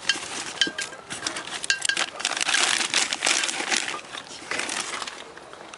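Hand tools rummaged in a toolbox: metal clinks and clatter, some with a short ring, thickening into a busy rattle in the middle as a smaller screwdriver is searched for.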